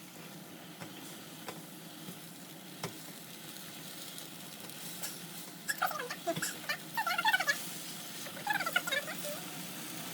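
Food sizzling steadily in a frying pan, slowly getting louder, with wet squelching and squeaking from stirring and mixing in the pan from about six seconds in.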